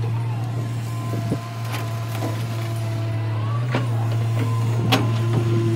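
Crawler excavator's diesel engine running steadily with a hydraulic whine that glides up and down as the arm moves. The steel bucket digs into stony soil with about five sharp knocks and scrapes.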